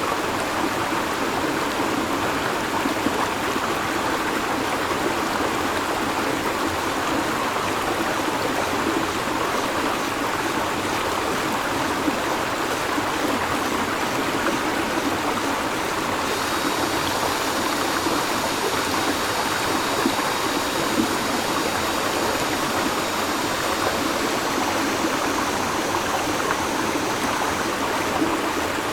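A river flowing steadily, with cicadas joining in a steady high buzz just past halfway.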